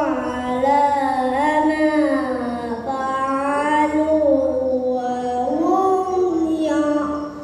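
A young boy's voice chanting Qur'an recitation in the melodic tilawah style through a microphone: one long held phrase with slow ornamented turns in pitch, fading out near the end.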